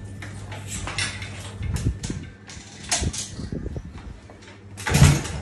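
Scattered light clicks and rattles of hands working on a motorcycle's handlebar controls, over a steady low hum, with one short louder knock near the end.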